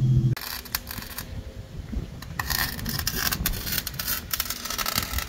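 A wire-feed (MIG) welder crackling in short, irregular bursts with brief pauses between them as it welds at a car's exhaust tips. A car engine is heard running for a moment at the very start, and it cuts off abruptly.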